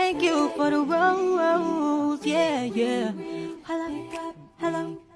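A cappella singing voice performing a sung phone ringtone. The melody bends up and down in short phrases.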